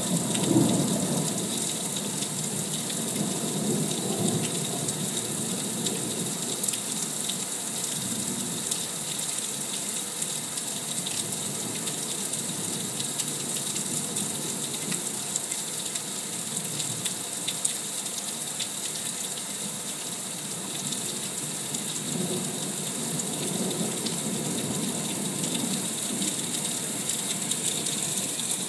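Heavy thunderstorm rain pouring steadily, with a low thunder rumble dying away at the start and another rumble of thunder swelling about three quarters of the way through.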